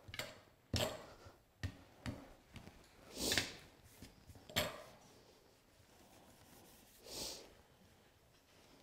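Short rubbing strokes and light knocks as a plastic fondant smoother is worked over fondant on a cake board, then a softer rub by hand along the fondant edge about seven seconds in.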